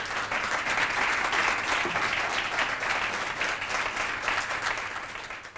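Audience applauding, many hands clapping steadily, tapering off and then cut off just after the end.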